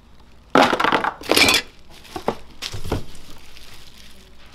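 Rummaging through a plastic toolbox of accessories: small hard parts clatter and plastic wrapping crinkles, loudest in two short bursts in the first second and a half, then a few lighter knocks and a softer rustle.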